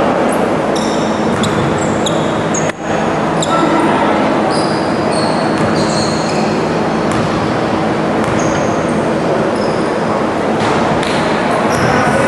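Basketball game sounds echoing in a gym hall: short high squeaks of sneakers on the court and ball bounces over a steady din of voices.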